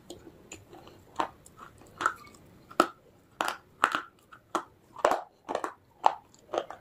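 Baked clay discs (Punjab ki mitti) being bitten and chewed close to the microphone: sharp, dry crunches about one to two a second, with a fresh bite about four seconds in.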